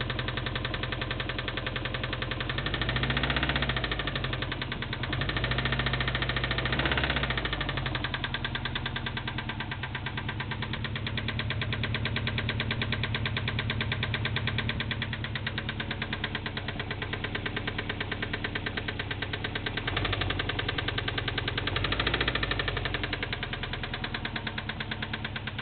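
2002 Subaru Impreza WRX's turbocharged 2.0-litre flat-four (EJ205) idling with a steady, rhythmic knock, revved briefly three times. The knock is rod knock from a spun or worn connecting-rod bearing, caused by oil starvation.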